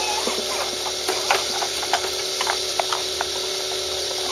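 Small plastic tricycle rolling over a textured concrete patio, its hard wheels giving irregular light clicks and rattles, over a steady hum.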